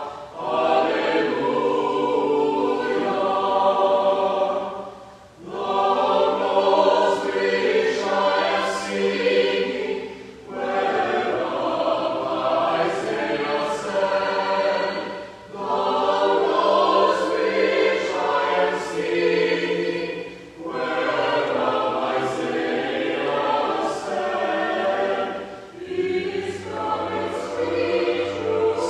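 Mixed choir of men and women singing a slow sacred choral piece. It moves in phrases of about five seconds, with short breaks between them where the voices drop away.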